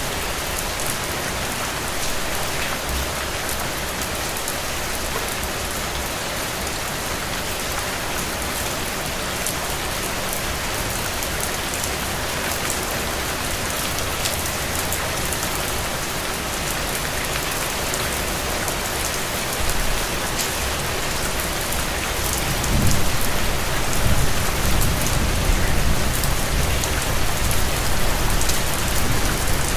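Heavy, steady rain falling on the ground and puddles: a dense, even hiss flecked with the patter of single drops. A low rumble swells in about two-thirds of the way through and stays to the end.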